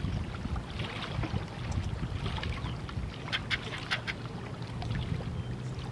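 Lake water lapping against a wooden dock, with short slaps and ticks about three to four seconds in and a faint steady low hum toward the end.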